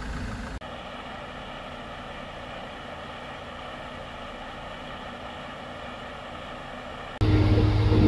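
Heavy vehicle engine running steadily at idle. Near the end the sound jumps to a much louder, steady engine drone with a deep hum.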